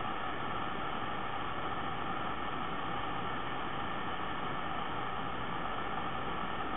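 Steady background hiss with faint humming bands in it, unchanging throughout; no breathing, snoring or gasping stands out above it.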